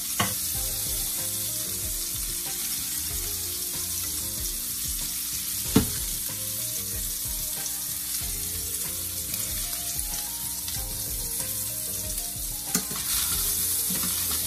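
Salmon pieces sizzling in hot oil in a stainless steel pot as they are seared, with three short knocks of utensils against the pot: one at the start, a louder one about halfway, and one near the end.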